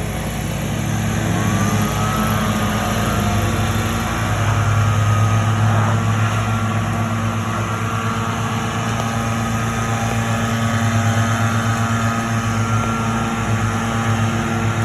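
Small gasoline engines of lawn-care equipment running steadily, with one revving up to a higher, held speed about a second in.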